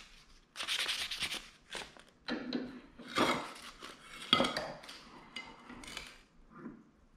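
A few short strokes of fine sandpaper rubbing, then metal clinks and knocks as a steel bench vise and hand tools are handled. A sharp clink comes about four seconds in.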